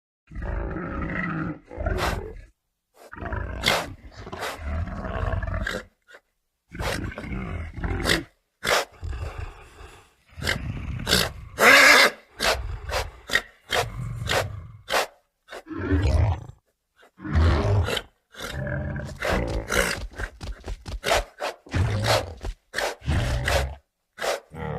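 Custom dinosaur sound effects made for a Pachycephalosaurus: a run of short roars and growls, one to two seconds each with brief pauses between, mixed with many sharp cracks. A louder, harsher roar comes near the middle.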